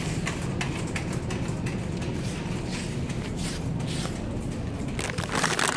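A plastic chip bag crinkles close by, loudest near the end, with phone handling rustles over a steady low hum.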